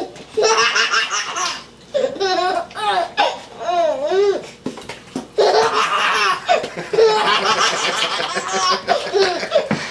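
Baby laughing in three long fits, the pitch swooping up and down, with short breaks about two and five seconds in.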